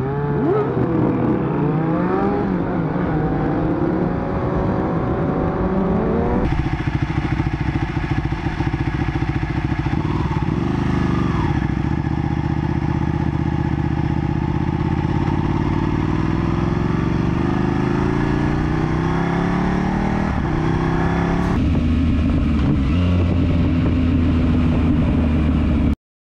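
Motorcycle engines running under way, picked up by onboard cameras. The pitch climbs as the bikes accelerate and drops back at gear changes. The engine sound changes abruptly twice, at about six seconds in and again near the end, as one ride gives way to another.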